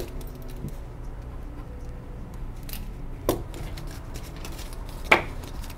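Paper banknotes crackling and rustling as a stack of bills is handled and counted by hand, with a few crisp snaps, the loudest about five seconds in.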